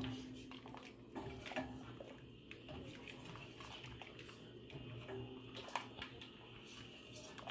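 Faint, scattered clinks and scrapes of a utensil against a cooking pot, with light water sloshing, as boiled potatoes, corn and sausage are scooped out of the seafood boil.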